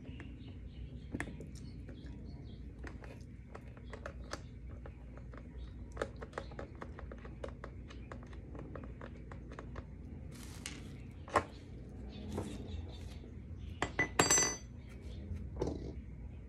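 Small metal clicks and clinks as a skate tool works the axle nut on a quad roller skate, taking a wheel off, with one sharp ringing metallic clink near the end.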